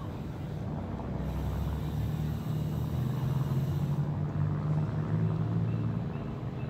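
Low, steady engine rumble, growing a little louder through the middle.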